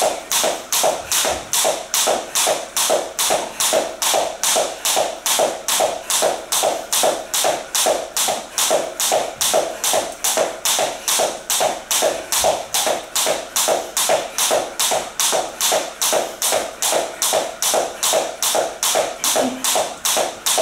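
Jump rope skipping on a wooden floor: the cord slaps the floor with each turn as sneakers land, in a steady rhythm of about two and a half strikes a second.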